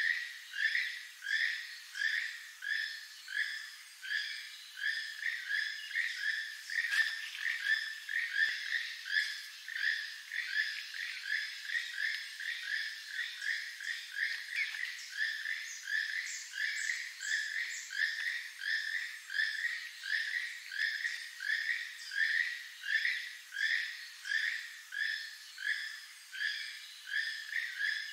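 Keel-billed toucan calling: a frog-like croak repeated steadily, about two a second.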